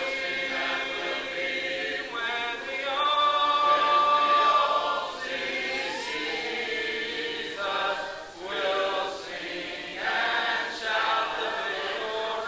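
Congregation singing a hymn a cappella, many voices without instruments, holding long notes.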